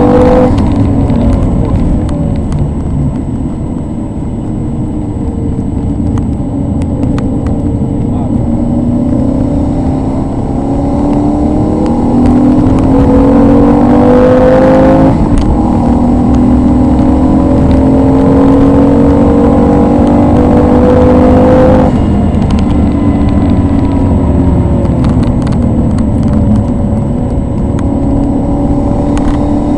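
Maserati 3200 GT's twin-turbo V8, tuned to 460 cv, heard from inside the cabin at track speed. The engine note falls over the first few seconds, then climbs under acceleration with an upshift about halfway, climbs again, and drops sharply about three quarters of the way through as the throttle is lifted.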